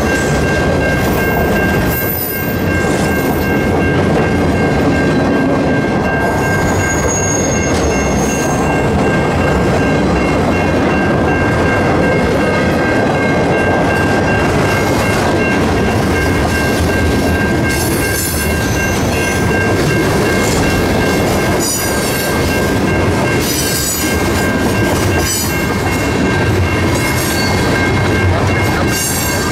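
Freight cars rolling past close by at a level crossing: a steady rumble and rattle of wheels on the rails, with the crossing's warning bell ringing steadily underneath. Short high screeches from the wheels come now and then, mostly in the second half.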